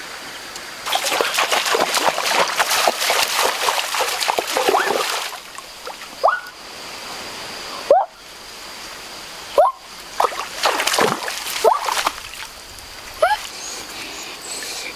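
Water splashing and sloshing in irregular bursts, with several short squeaky chirps gliding in pitch scattered between them.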